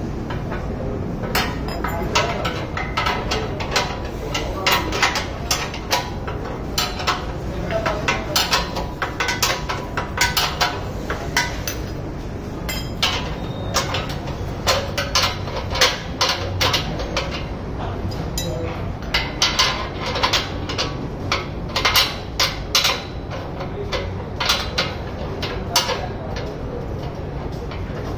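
Steel ring spanner clinking against the bolts and steel tube frame of a mini crane stand as its bolts are tightened: irregular sharp metal clicks and clinks throughout, over a steady low background rumble.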